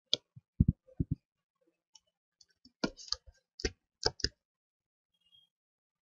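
Computer mouse clicking: a dozen or so short, sharp clicks, several in quick pairs, which stop a little over four seconds in.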